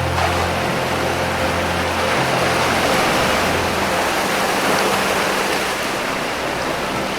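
Ocean waves washing against rocks as a steady rush of surf, with low, soft held music notes underneath that change every couple of seconds.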